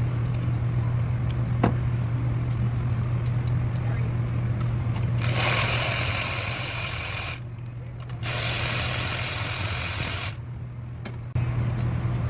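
Two loud rushing hisses of about two seconds each, starting about five seconds in, over a steady low hum, with a few faint clicks before them.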